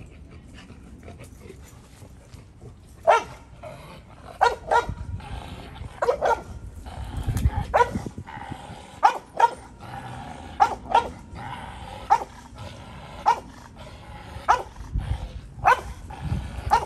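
American bulldog barking at the helper hidden in a protection blind. It gives a run of sharp barks, roughly one a second, starting about three seconds in. This is the hold-and-bark stage of an IGP protection routine, where the dog holds the helper at the blind by barking.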